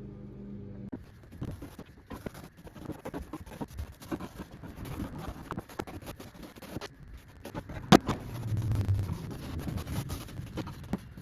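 Irregular hand work on wooden furniture: scratchy scraping with light clicks and knocks, and one sharp knock about eight seconds in.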